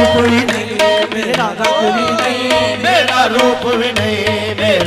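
Live qawwali music: harmoniums holding short notes over quick tabla strokes, with the lead singer's wordless gliding vocal runs between sung lines.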